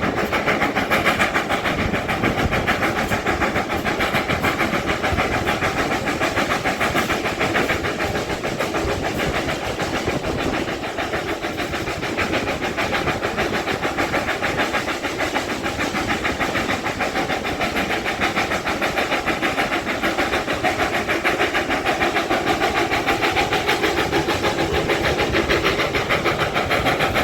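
GWR Manor-class two-cylinder 4-6-0 steam locomotive working hard under load, its exhaust beating in a rapid, steady rhythm with hiss and the running of the train.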